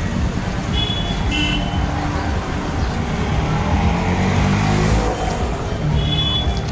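Busy town-street traffic: vehicle engines running and passing close, with an auto-rickshaw engine rising in pitch around the middle. Short horn beeps about a second in and again near the end.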